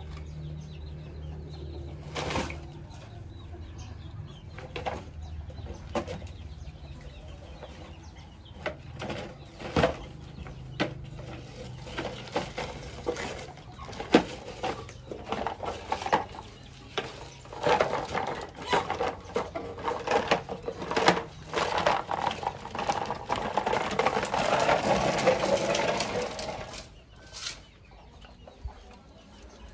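Plastic toy dump truck knocking and scraping as it is loaded with soil and pushed over the ground, with chickens clucking. The knocks come irregularly, busiest in the second half.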